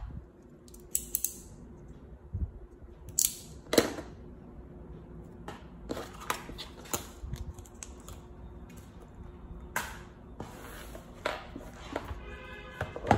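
Handling noise on a tabletop: scattered sharp clicks and taps as an Apple Pencil and small plastic and sticker pieces are picked up and set down.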